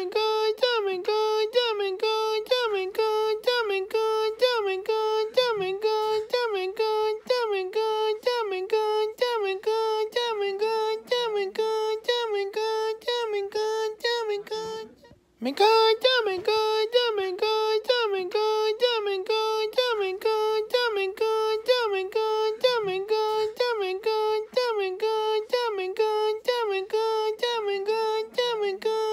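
A high-pitched singing voice repeating the same note in short syllables, about two a second, all on one steady pitch. About halfway through it stops for a moment, then starts again in the same pattern.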